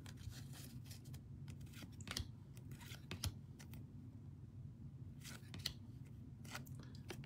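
Faint, irregular clicks and slides of card stock as a stack of football trading cards is flipped through by hand, one card at a time, over a low steady hum.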